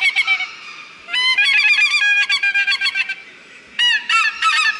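Polycarbonate plastic goose call blown in runs of rapid honks imitating geese. There are three runs with short pauses between them, and each note breaks sharply upward in pitch.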